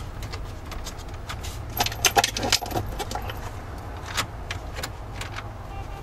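Plastic dash trim pieces clicking and rattling as they are pressed into place around the radio, with scattered sharp clicks that come thickest about two seconds in. A steady low hum runs underneath.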